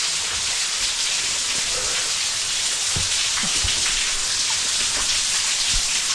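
Steady hiss of falling water from an underground cave waterfall.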